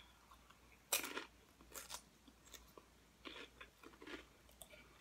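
Crunchy chewing of nacho chips, several crisp crunches spaced about a second apart, the loudest about a second in.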